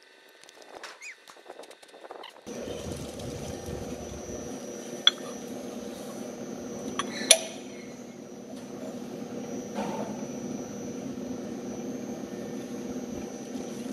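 A rag rubbing over a machined metal part, with faint squeaks. About two and a half seconds in, a steady machine hum starts and keeps going. Two sharp metal clinks sound a couple of seconds apart while the parts are handled.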